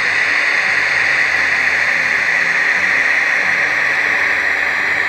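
Märklin HO-scale E 93 electric locomotive model running along the track with a steady hiss.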